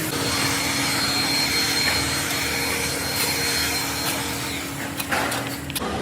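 A machine tool's motor running steadily with a whine, ending with a few sharp clicks and a change in pitch near the end.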